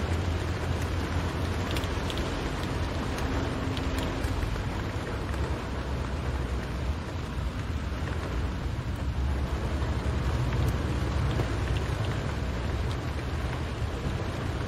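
Rain falling on a car's roof and windscreen, heard from inside the cabin as a steady hiss with scattered drop ticks, over a steady low rumble of the moving car.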